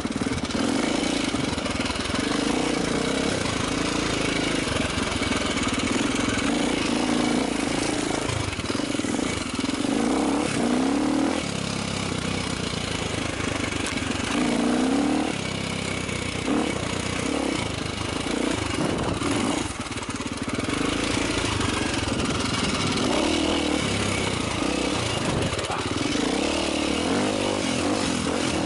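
Vertemati 450cc single-cylinder four-stroke enduro dirt bike engine running under load while ridden off-road, revving up and falling back repeatedly, with sharp rises about ten and fifteen seconds in. Wind rushes over the microphone throughout.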